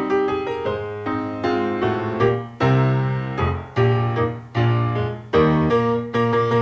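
Piano music: chords and a melody played at a moderate pace over sustained bass notes.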